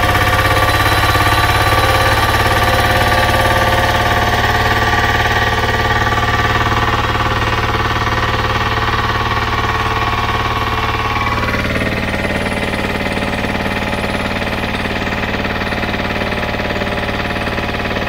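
Lombardini diesel engine driving an irrigation water pump, running steadily after drawing some air into its fuel; its note changes about eleven seconds in.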